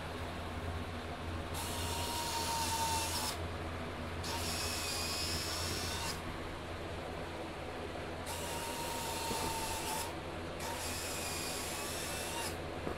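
DJI Phantom retractable landing gear on a Cheerson CX-20 drone, its small electric retract motors whining as the legs swing up and down. There are four runs of about two seconds each, over a steady low hum.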